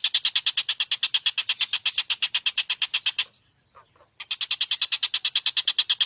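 Tengkek buto kingfisher calling in a fast, harsh rattle of about ten evenly spaced notes a second. It breaks off for about a second past the middle, then starts up again.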